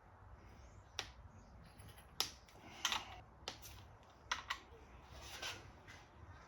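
Scattered light clicks and taps of hand tools and small parts while the cam-cap bolts are taken off a Subaru EJ257 cylinder head, about one click a second.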